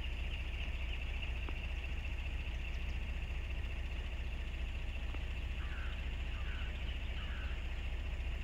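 Open-field ambience: a steady low rumble under a steady high buzzing hiss, with three short, faint calls about two-thirds of the way through.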